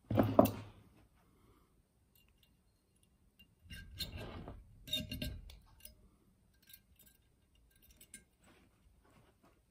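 Safety wire and safety-wire pliers working on a slotted brake rotor and hat: a sharp metallic clink right at the start, then about two seconds of rustling and clicking near the middle as the pliers grip and twist the wire, followed by scattered light clicks.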